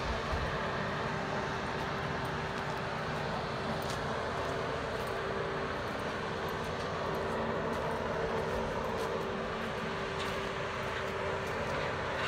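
Steady drone of machinery with a constant humming tone over a low rumble.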